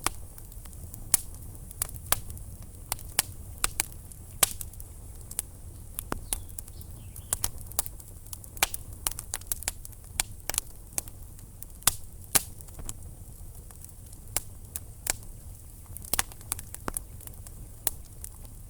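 Wood fire burning in a fireplace: logs crackling and popping in irregular sharp snaps over a low steady rumble of the flames.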